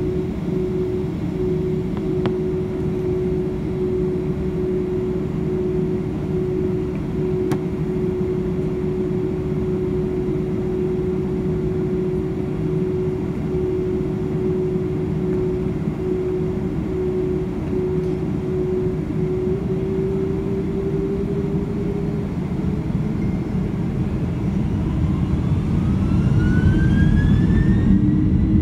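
Boeing 767-300ER's jet engines heard from inside the cabin while taxiing: a steady rumble with a steady whine. Beginning about 24 seconds in, rising whines come in and the sound grows louder as the engines spool up.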